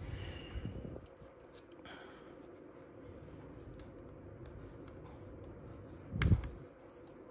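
Fingers handling a MacBook Air's battery connector and board as it is pressed back into its socket: faint clicks and rubbing, with one sharp, louder click about six seconds in.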